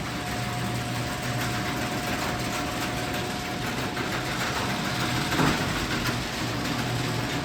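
Genie screw drive garage door opener running steadily as it lowers the door: a low motor hum with a thin steady whine over the rattle of the drive, really loud. There is a brief clunk about five and a half seconds in.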